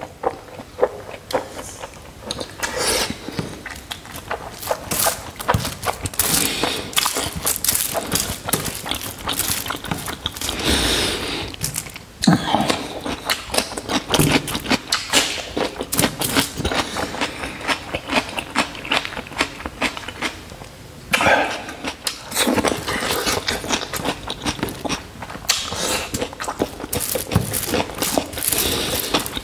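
Close-miked eating sounds of a man chewing mouthfuls of noodles and pork belly, dense with rapid crackly clicks and wet mouth noises. Between bites, his fingers scoop food off a foil-lined tray.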